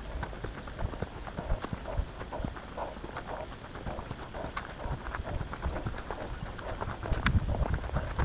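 Footsteps of a person walking along a bush track, a quick, regular run of steps, with a low rumble near the end.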